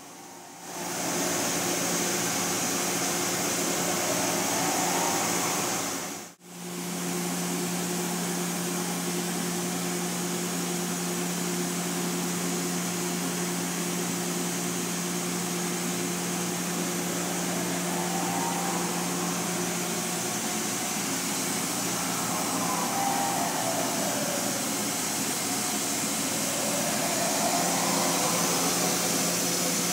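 Makino S56 vertical machining center running: a steady machine hum and hiss, with faint rising and falling whines now and then as motors speed up and slow down. The sound cuts out briefly about six seconds in.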